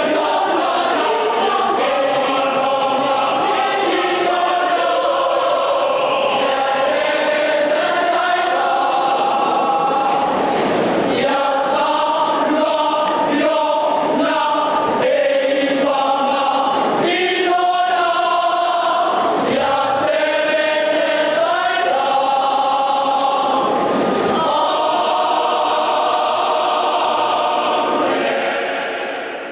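A large women's choir singing, fading out near the end.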